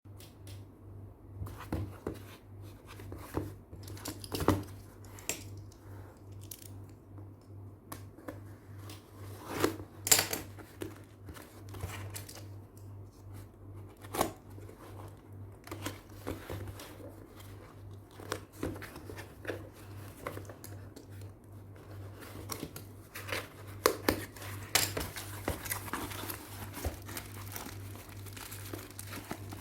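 Packaging being opened by hand: plastic and paper crinkling and tearing, with scattered taps and clicks, over a steady low hum.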